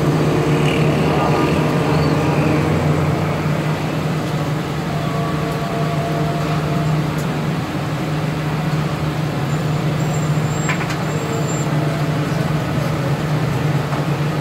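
Steady street traffic noise with a constant low hum, and a few light knocks of a meat cleaver on a flat-top griddle.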